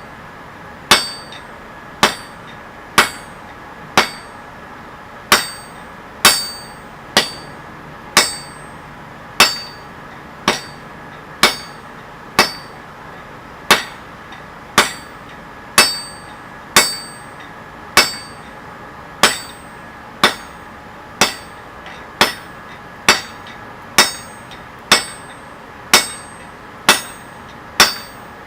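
Steady, even hammer blows on steel at an anvil, about one a second, each a sharp clank with a short metallic ring, as 25 mm square mild steel bar is forged.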